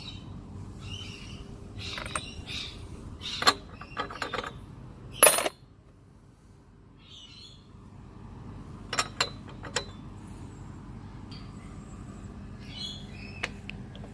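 Scattered metallic clinks and clicks of a socket tool being handled and fitted on a lawnmower engine's spark plug, with one louder clank about five seconds in and small clusters of clicks near nine and thirteen seconds. Birds chirp in the background.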